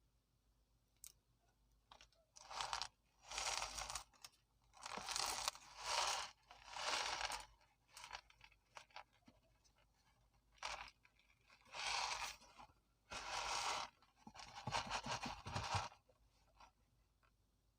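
Plastic snack-packet packaging being handled: about eight short bursts of crinkling and crackling, separated by short pauses.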